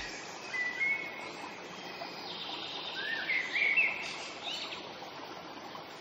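A small grassy stream trickling steadily, with birds chirping several times over it in the first few seconds.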